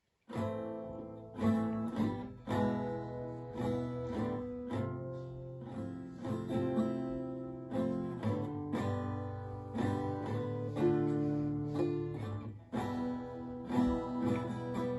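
Solo acoustic guitar playing chords, struck about once a second and each left to ring.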